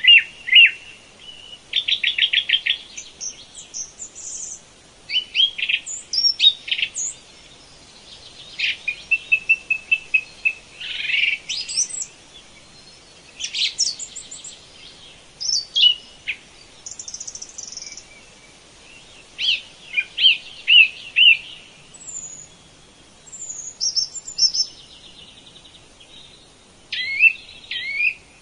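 Songbirds singing: a varied run of high chirps, whistled slides and rapid trills, one phrase after another with short pauses between.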